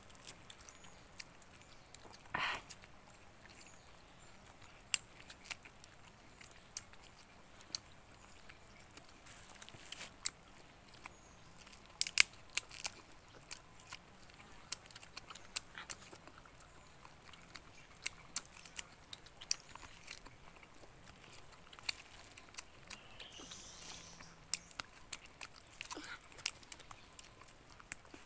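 Two people chewing and biting roast chicken at close range: irregular wet smacks and crunching clicks scattered throughout. A short, louder sound comes about two seconds in.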